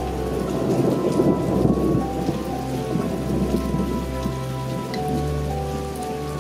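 A long rumble of thunder over steady rain: it swells about half a second in, is loudest around one to two seconds, and dies away by about three seconds, leaving the rain. Soft held music notes run underneath.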